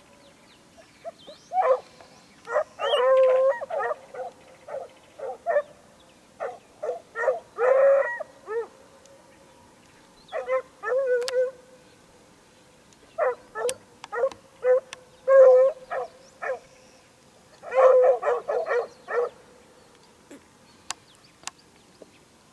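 Hunting dogs baying in repeated bursts of barks and howls while trailing a hare, with short pauses between the bursts.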